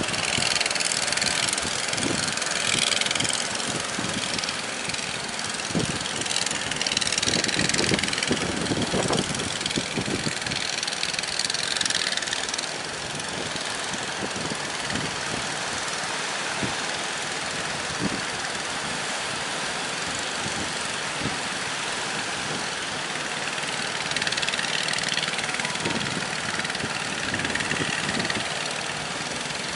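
A boat engine running steadily under a constant rush of wind and water, with louder surges of hissing spray and scattered low thumps.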